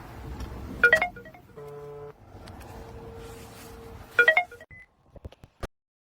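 Electronic chimes and beeps from a smart door lock: two short chime clusters about three seconds apart with a buzzy beep between them, followed by a few soft clicks.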